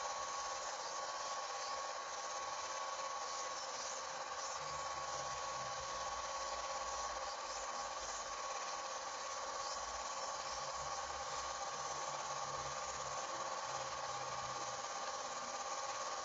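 Film projector running: a steady mechanical whirr with a few constant tones, unchanged throughout.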